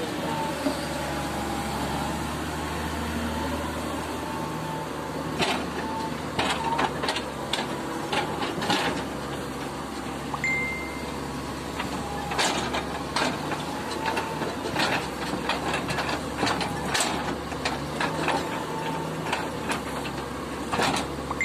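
Wheeled excavator's diesel engine running steadily, with a thin whine that comes and goes. Over it come sharp knocks of rocks clunking as the bucket drops and pushes them onto a pile, several through the middle and second half.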